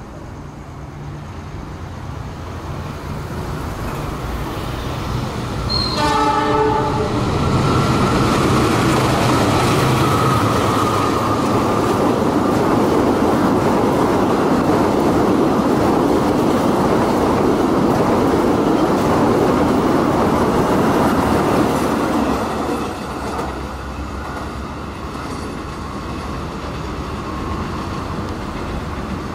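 Passenger train led by a diesel locomotive approaching, its engine growing louder. The locomotive sounds a short horn blast about six seconds in. The locomotive and carriages then pass close by with a loud rushing rumble, which drops off after about twenty-two seconds as the train moves away.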